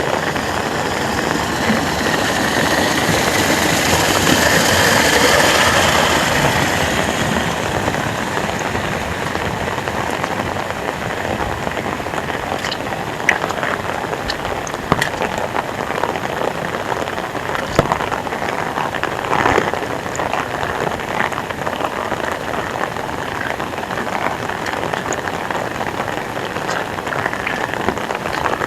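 Heavy rain pouring steadily, with scattered sharper drips and splats. A few seconds in, the sound swells louder for several seconds and then eases back.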